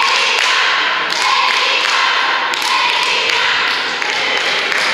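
Steady hubbub of an audience in a large echoing hall, with scattered knocks and thumps.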